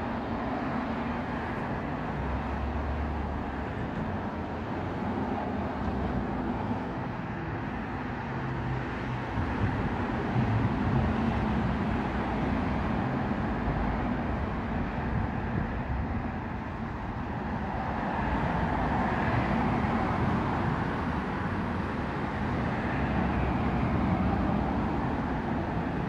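Steady background noise with most of its weight low down and no clear budgie calls, growing a little louder in the second half.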